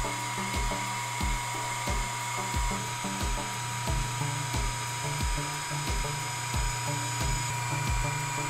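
Background music with a steady beat, over the steady high-pitched whine of a CNC engraving spindle cutting a gold bangle.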